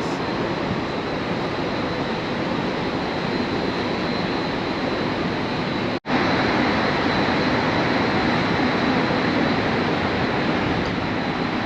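Steady rushing noise with a faint high whine, broken by a split-second dropout about six seconds in.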